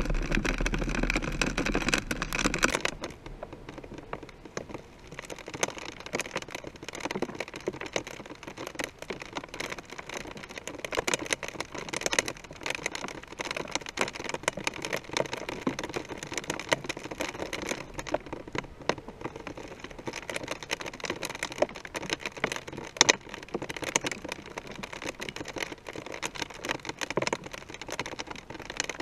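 Raindrops ticking and pattering on the camera housing of a rising high-altitude balloon payload, with wind noise. A louder rushing rumble in the first three seconds gives way to a steady spatter of drops.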